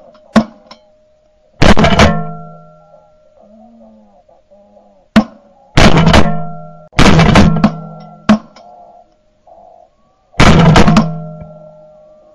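Repeated shotgun shots, heard very close from a barrel-mounted camera: about five loud blasts a second or more apart, with shorter sharp cracks between them. Each blast leaves a brief ringing tone that dies away.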